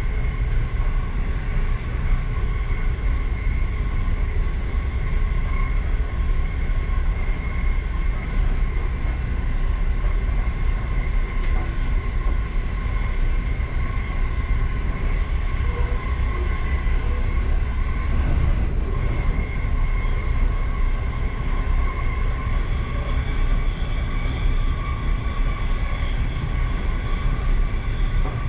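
Passenger train running steadily, heard from inside the last car: a continuous low rumble of wheels on the rails with a steady whine over it.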